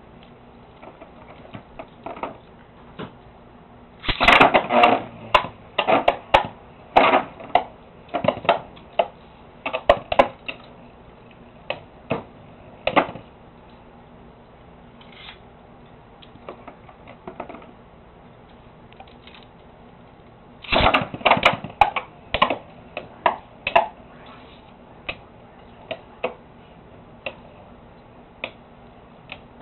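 Beyblade spinning tops clattering against each other and the plastic walls of the stadium: quick runs of sharp clicks and knocks, densest about four seconds in and again after about twenty seconds, with scattered single ticks between.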